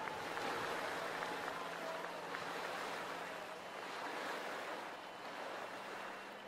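Steady rush of water spray from a slalom water ski carving through a tow boat's wake, with a faint low hum of the boat underneath.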